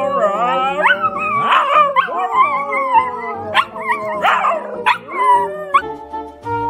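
Two husky-type dogs howling together, their overlapping voices sliding up and down in pitch. About six seconds in the howling stops and background music takes over.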